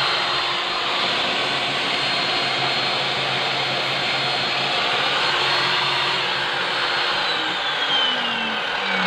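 Circular saw mounted under a homemade table saw running free at full speed with a steady high whine, no cut being made. About seven seconds in it is switched off and the whine falls in pitch as the blade winds down.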